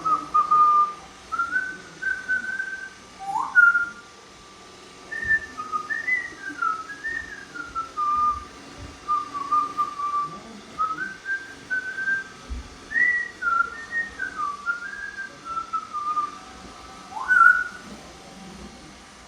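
Congo African grey parrot whistling a melody of clear, pure notes, with two quick upward swoops along the way.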